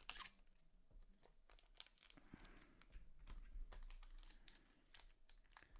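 Near silence with faint, scattered clicks and a light rustle.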